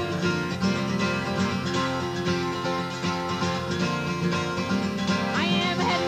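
Live acoustic country music with acoustic guitar playing an instrumental passage, without singing.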